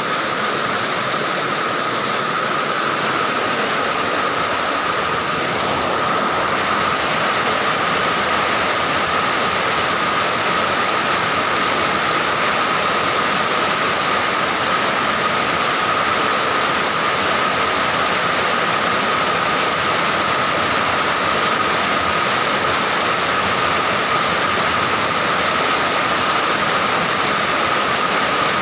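Heavy rain falling steadily: a dense, even hiss with no single drops or hits standing out.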